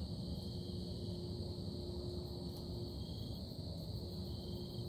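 A steady low droning hum with a constant tone in it, under a continuous high-pitched buzz.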